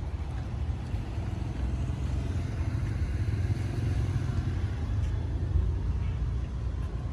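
Wind buffeting the microphone: a steady, fluttering low rumble with little sound above it.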